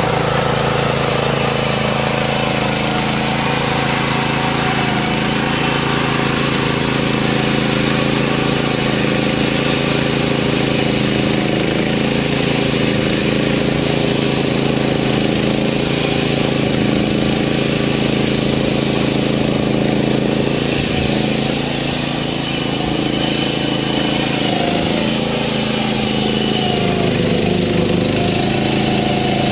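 BCS 740 two-wheel tractor's engine running steadily under load as its 75 cm lawn scarifier works the turf, with a mechanical rattle over the engine note. The level dips briefly a little past two-thirds through.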